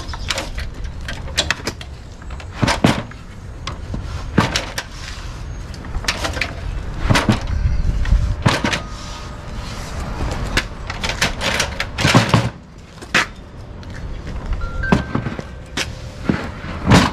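Irregular plastic and metal knocks and clunks as a Milwaukee table saw's base is rocked and pressed in its Packout mounting tray on a wooden tabletop. The clunks are the saw seating in the tray, which is a snug fit.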